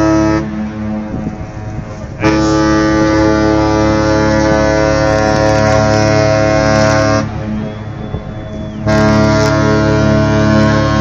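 Cruise ship Celebrity Solstice's horn sounding loud, long blasts, a steady multi-tone note that breaks off about half a second in, sounds again for about five seconds, and returns near the end: the ship's farewell signal as it sails out of port.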